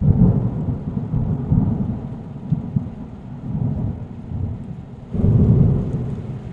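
Rolling thunder: a low rumble that swells and fades, surging louder about five seconds in.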